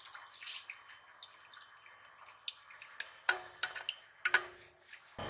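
Liquid swishing and dripping in a black iron wok as a steel lid scrapes and scoops through it, with several sharp metallic clinks of steel against iron in the second half.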